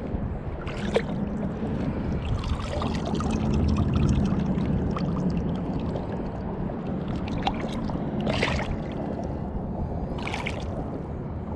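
Shallow saltwater sloshing and lapping around a spotted seatrout held by hand at the surface, with short splashes about a second in, around eight seconds in and again about ten seconds in as the fish is lowered back into the water.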